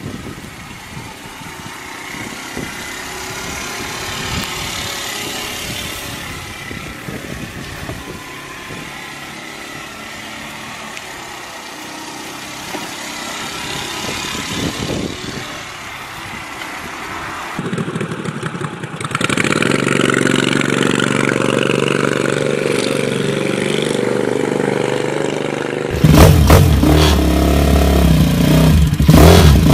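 Motor scooter's engine running as it is ridden past, under road and wind noise. After a cut, a custom mini bike's small engine runs loudly at a steady pitch over the last few seconds.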